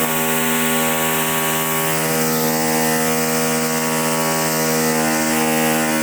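Electric power drill running steadily for about six seconds, its motor pitch dipping slightly midway, as if under load.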